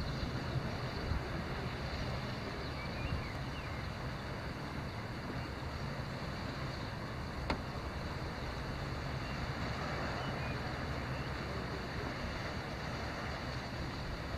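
Steady wind noise on the microphone, with one faint click about seven and a half seconds in.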